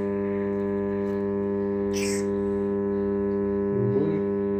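Okean 209 portable radio humming steadily from its speaker, a loud, unchanging low drone with many overtones. This is the "гудит" fault named in the sale listing. A brief hiss about two seconds in, and a faint wavering snatch of sound near the end.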